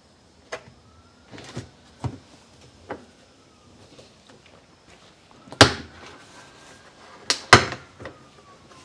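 Knocks and clunks of hands and tools working on a washing machine: a few light taps early, then three sharp, loud bangs about halfway through and near the end.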